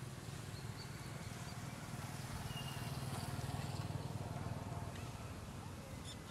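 Outdoor ambience: a steady low rumble with a few faint, short high chirps.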